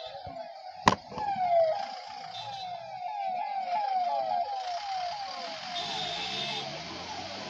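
Police escort vehicle siren sounding a fast repeating downward sweep, about three sweeps a second, over the noise of passing traffic. A single sharp click comes about a second in.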